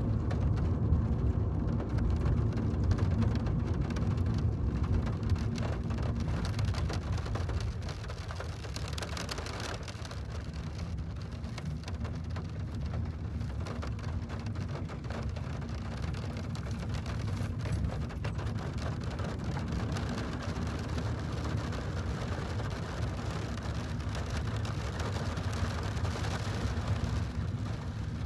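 Rain falling steadily over a low rumble, a little louder in the first several seconds.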